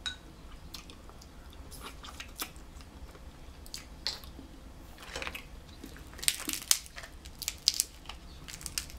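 Close eating sounds: chewing, then sharp cracks and crunches of snow crab leg shells being snapped apart by hand, densest and loudest about six to eight seconds in.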